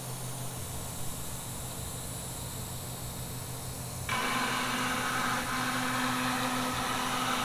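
CNC router spindle running with its bit cutting grooves into a particleboard panel, a steady mechanical hum. About four seconds in the sound abruptly turns louder and higher-pitched.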